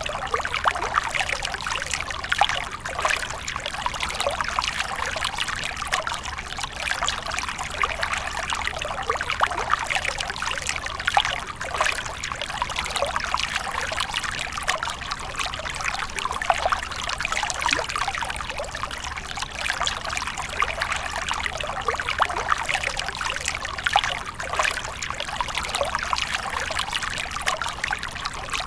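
Water splashing and trickling steadily, a dense, unbroken run of small splashes and drips.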